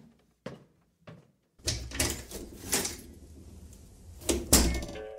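Sound effect of a door being opened and shut: a few soft footsteps, then handling and latch clicks, ending in a closing thud about four and a half seconds in.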